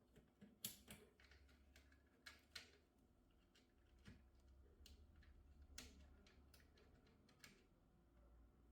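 Faint, irregular light clicks and taps from small objects being handled, over a low steady hum.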